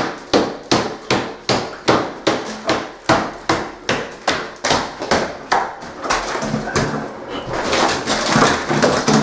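Hammer blows breaking out a wall, a steady run of about three sharp strikes a second. About six seconds in the strikes give way to continuous crackling and crumbling as broken wall material is pulled away, with a few scattered knocks.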